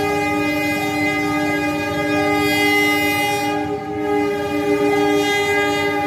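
Steady, multi-toned railway warning sound at a level crossing as a train approaches, with one part switching back and forth about every 0.7 seconds over a low rumble.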